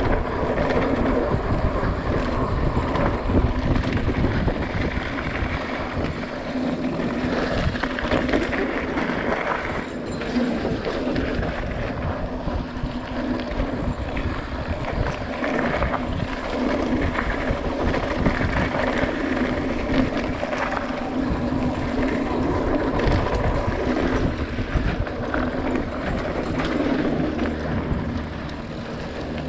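Mountain bike rolling down a dirt trail: steady tyre noise with a continual rattle and knock from the bike over rough ground.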